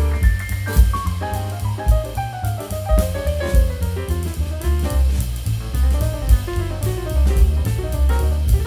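Jazz background music: drum kit with a walking bass line and a stepping melody, likely saxophone.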